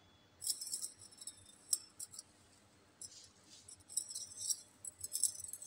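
Irregular bursts of light, high-pitched metallic clinking and jingling, in clusters that start about half a second in.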